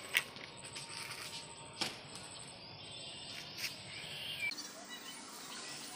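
Quiet outdoor ambience with three sharp clicks, a little under two seconds apart, and faint bird chirps a little past the middle.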